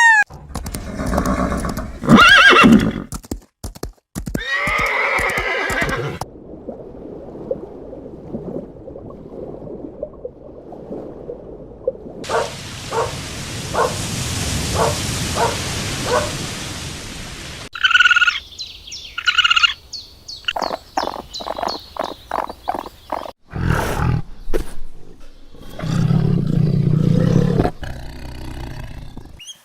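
A series of short animal-sound clips in which horses neighing and whinnying are the main sound, with hissing and clicking noises between the calls.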